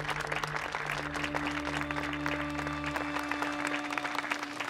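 A crowd applauding over music with long held notes.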